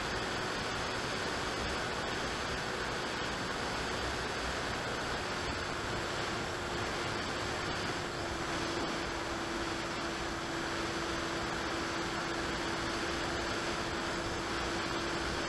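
Electric motor and propeller of an AXN Clouds Fly foam FPV plane in steady cruise, heard through the onboard Mobius camera's microphone as a constant hum under heavy wind rush. The hum grows slightly stronger about eight seconds in.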